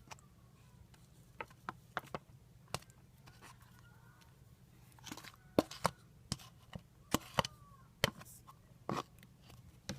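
Homemade glue-and-detergent slime being moved from one bowl into another: irregular sharp sticky clicks and small knocks of the slime and bowls being handled, sparse at first and more frequent and louder from about halfway through.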